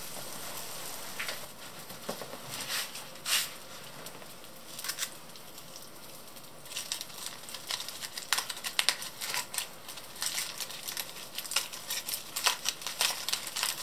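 Lamb chops sizzling on an electric grill, with a steady hiss and scattered pops. About seven seconds in this gives way to aluminium foil crinkling and crackling as a foil packet is unwrapped by hand.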